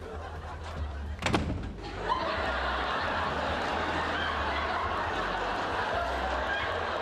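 A door shut with a bang about a second in, then a studio audience laughing steadily.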